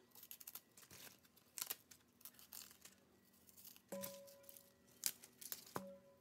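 Faint crisp snaps and cuts as a small knife slices through crunchy green mustard stalks and leaves, in short scattered clicks. About four seconds in, and again near the end, a knock sets a stainless steel bowl ringing briefly.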